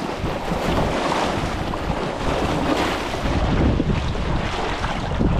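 Wind buffeting the microphone, with water lapping. The low rumble of the wind grows stronger about three seconds in.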